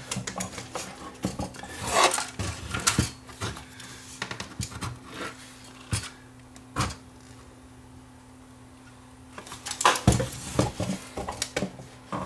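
VCR chassis and circuit board being handled and set down on a workbench: scattered clatters and knocks of metal and plastic parts, a quiet spell past the middle, then more clattering near the end.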